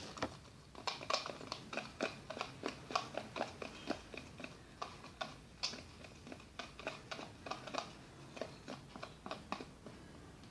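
Slime base of PVA glue, body lotion, baby powder and foam cleanser being stirred in a bowl: a run of irregular wet, sticky clicks and squelches, a few each second.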